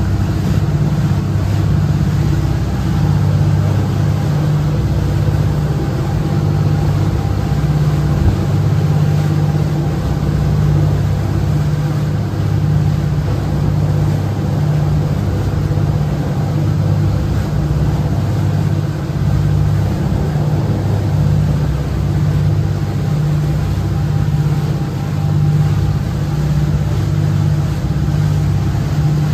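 Sportfishing boat's engine running steadily under way: a low, even drone with a slight regular throb.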